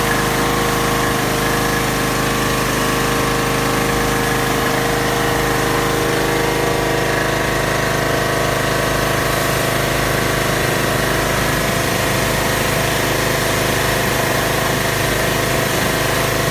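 Briggs & Stratton 190cc single-cylinder engine of a Troy-Bilt pressure washer running steadily under load with the spray trigger held, the water jet hissing over the engine. Near the end the spray stops and the engine drops back toward idle.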